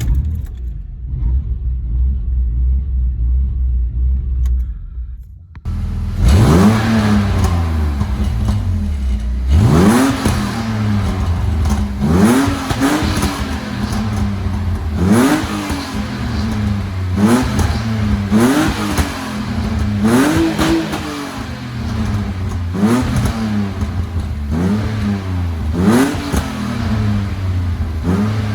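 BMW E46 engine, with its mass airflow sensor unplugged, idling low, then blipped repeatedly from about five seconds in: short throttle revs roughly every two seconds, each rising quickly and falling back to idle.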